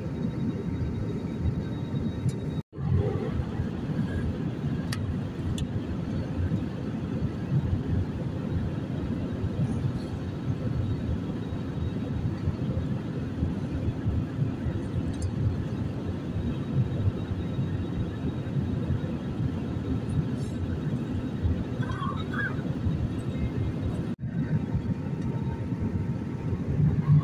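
Steady low rumble of an Airbus A320's engines and slipstream as heard inside the passenger cabin on the descent. It cuts out for an instant twice.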